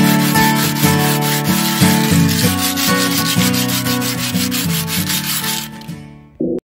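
Folded sandpaper rubbed by hand in rapid back-and-forth strokes over the steel plate of a griddle, scouring off surface rust; the sanding fades out near the end.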